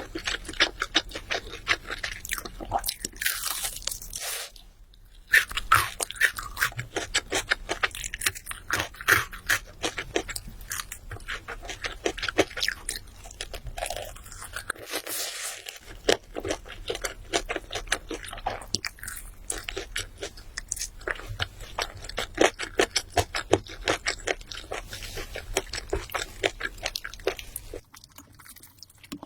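Crisp fried chicken being bitten and chewed close to the microphone: dense, rapid crunching, with a short pause about five seconds in, easing off near the end.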